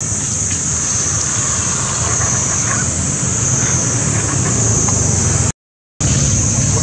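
Steady outdoor background noise, a low rumble under a high steady hiss, broken by about half a second of dead silence near the end.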